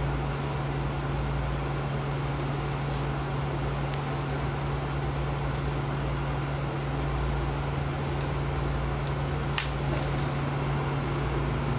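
Room air conditioner running: a steady rushing noise with a constant low hum, and a few faint clicks.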